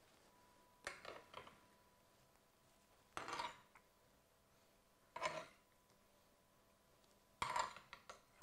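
Metal spoon scraping and clinking against a ridged grill pan as fish fillets are lifted out, in four short bursts about two seconds apart.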